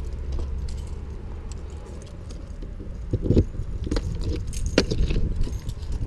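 A ring of keys jangling as a key is worked into the lock of a travel trailer's exterior storage compartment door, with a few sharp clicks between about three and five seconds in as the lock turns and the door is unlatched. A steady low rumble runs underneath.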